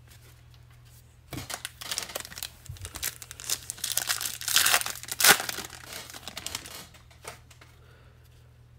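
The foil wrapper of a 2021 Bowman baseball card pack crinkles and tears as it is ripped open by hand. The sound starts over a second in, is loudest about halfway through, and dies away about two seconds before the end.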